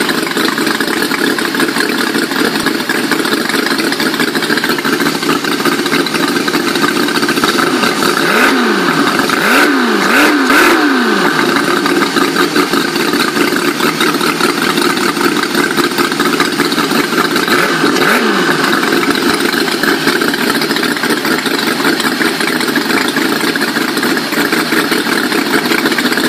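Miniature 100 cc aluminium-block Challenger flathead V8 model engine running on gasoline, idling steadily. It is revved briefly three times in quick succession about a third of the way through, and once more about two-thirds through.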